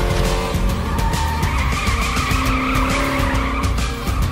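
Racing-car sound effects, engine noise and tyre squeal, over background music with a steady beat; the squeal comes in about a second and a half in.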